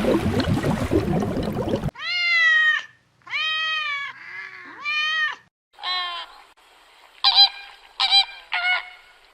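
A noisy, rustling sound for about two seconds, then a series of animal calls: three long pitched calls, followed by four shorter ones near the end.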